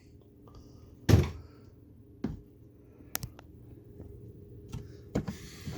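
Tools being handled and set down in a toolbox: a heavy thud about a second in, a second thud a second later, a sharp click, then light knocks and clatter near the end.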